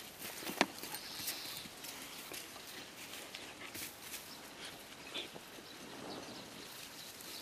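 A dog moving about and sniffing on sand and grass: scattered faint scuffs, rustles and snuffles, with one sharper knock about half a second in.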